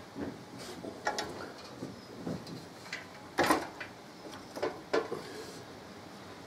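A series of irregular metal clicks and knocks as a swingarm side plate is handled and worked into place over the pivot bush, with one louder knock about halfway through.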